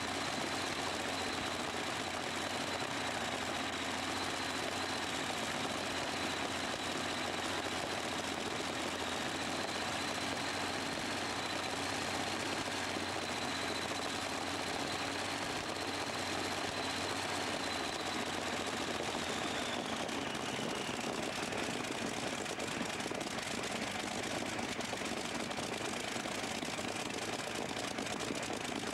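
Modified pulling tractor's big engine idling steadily. A thin high whine runs through it and falls in pitch about twenty seconds in.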